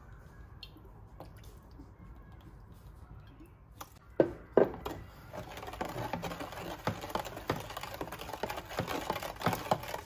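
Kitchen food-preparation sounds: two sharp knocks about four seconds in, then a quick run of light clicks and taps.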